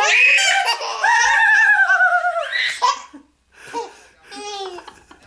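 A young child laughing, high-pitched: a long wavering peal that falls in pitch, then after a short pause a few shorter giggles near the end.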